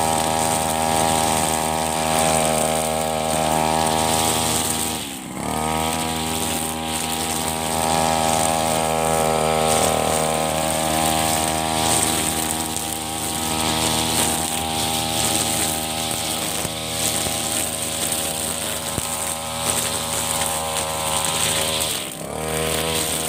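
Backpack brush cutter with a nylon line head running at high speed while cutting short grass. The engine briefly drops in speed and picks up again twice, about five seconds in and near the end.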